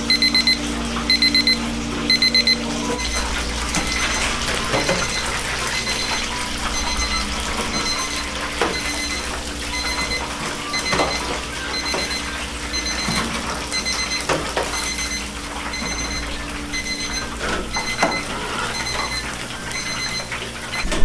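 Digital kitchen timer going off as its countdown runs out: short bursts of rapid high beeps about once a second, loud for the first few seconds and fainter after. Under it, chicken sizzles in a deep fryer, with metal tongs and the wire basket clinking now and then.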